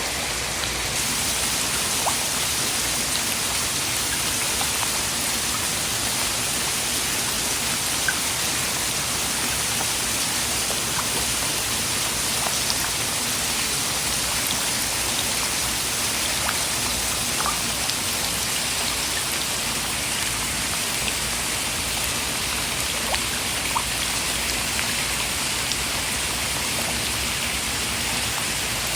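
Steady rain falling: an even, unbroken hiss with a few faint drop ticks here and there, played as white noise for sleep.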